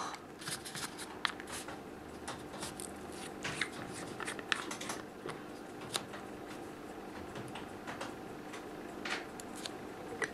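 Small clicks and taps of a glass lab bottle and its plastic screw cap being handled on a workbench, the cap unscrewed and put back on, over a faint steady hum.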